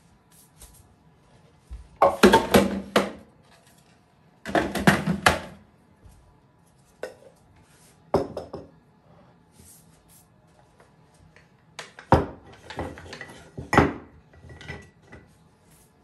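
Dishes and cutlery being handled, clattering in a few separate bursts of clinks and knocks, the busiest about two seconds in, around five seconds in, and again near the end.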